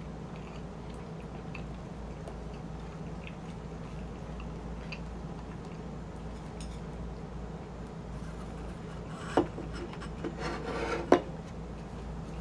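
Faint small ticks over a steady low hum, then a utensil knocks and scrapes against a dish: a sharp knock about three quarters in, a short rattling scrape, and a second sharp knock just after.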